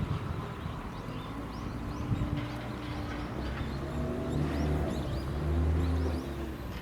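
Small birds chirping over a low, steady hum that swells a little near the end.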